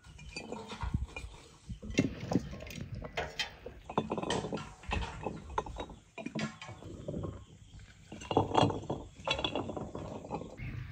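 Garlic cloves dropped by hand into large glass jars packed with dill and herbs: an irregular run of light clinks and taps on the glass with some rustling, pausing briefly midway.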